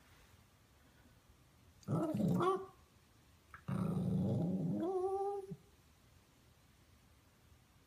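Small white puppy vocalizing at its owner twice, a growly 'talking' sound: a short yowl about two seconds in, then a longer one that starts as a low growl and turns into a whining note gliding upward.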